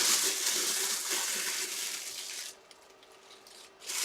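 Plastic packaging crinkling and rustling as it is handled, for about two and a half seconds, then much quieter.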